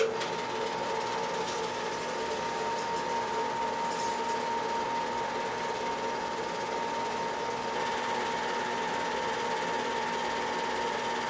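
Film projector running with a steady mechanical clatter and hum, with a few crackles and pops of old film in the first few seconds.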